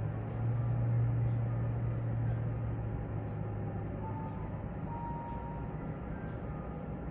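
Muffled low rumble of an airliner pushback on the apron, heard through terminal glass: a steady hum, loudest in the first few seconds and then easing off. Faint high ticks come about once a second.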